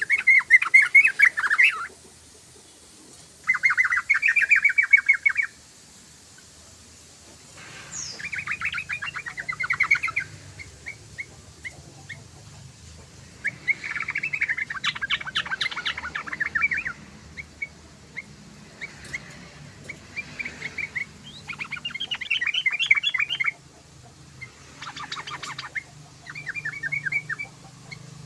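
Yellow-vented bulbul (trucukan) singing: repeated bursts of rapid, stuttering chattering notes, each a second or two long, with short pauses between them.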